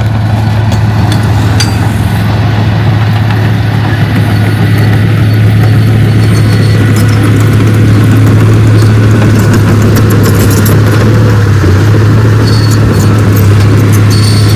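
Heavy diesel earthmoving machine's engine running steadily and loudly, growing a little louder over the first few seconds, with scattered light metallic clicks.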